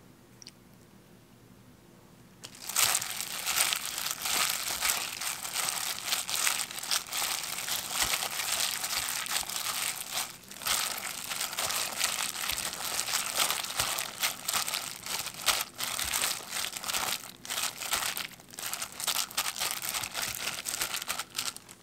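Hand in a disposable plastic glove kneading and tossing blanched scallions with gochujang seasoning in a glass bowl: dense crinkling and rustling of the glove and greens, starting about two and a half seconds in.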